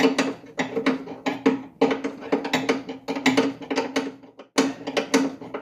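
Irregular metallic clinks and knocks from hand tools working on a tractor's fuel-tank mounting, several a second with a short gap near the end, over a steady low hum.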